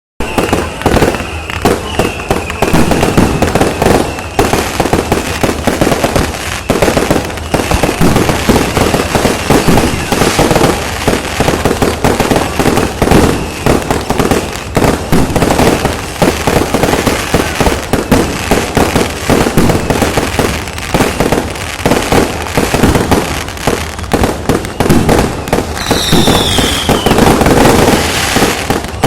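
Dense, continuous barrage of fireworks and firecrackers popping and banging, with a short falling whistle near the end.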